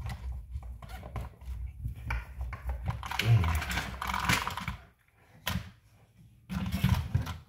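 Light clicks and clatter of small RC car suspension parts being handled and fitted, with a stretch of rustling about three seconds in and a short quiet spell before more clicks near the end.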